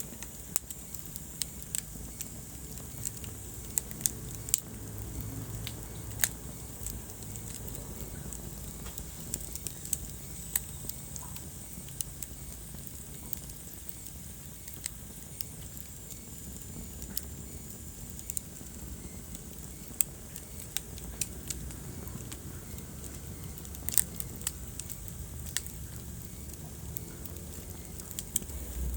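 Wood fire crackling in a fireplace: irregular sharp pops and snaps, a few of them louder, over a steady low rumble of the flames.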